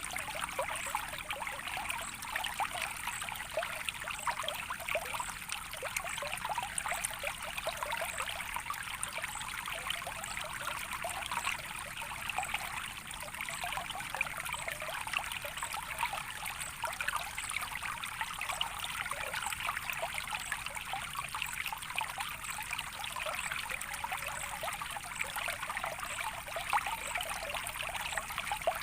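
Gently running water trickling and babbling steadily, a soft continuous splashing with no pauses.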